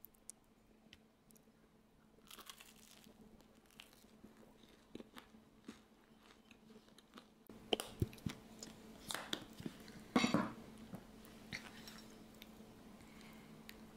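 A person eating, with crunchy bites and chewing. The crunches are sparse at first and come thicker and louder from about halfway, over a faint steady hum.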